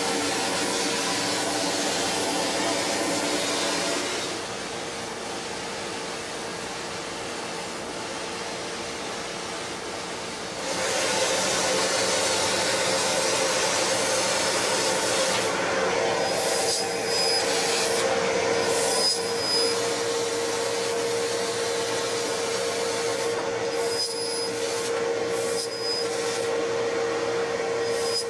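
CNC fiber laser cutting machine cutting steel plate: a steady hiss over a constant hum. The sound drops back about four seconds in, picks up again about ten seconds in, and the hiss breaks off briefly several times near the end as the head moves between cuts.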